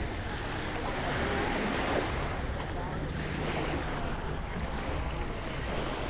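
Surf washing onto the beach, swelling and easing, with a low rumble of wind on the microphone.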